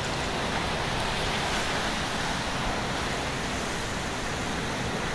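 Steady rushing noise of very strong cyclone wind with rain, the wind blowing on the microphone.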